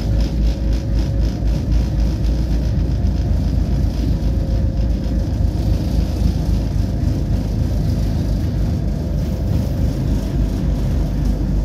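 Inside a Tatra tram under way: a steady low rumble of steel wheels on rails and running gear, with a faint steady whine over it.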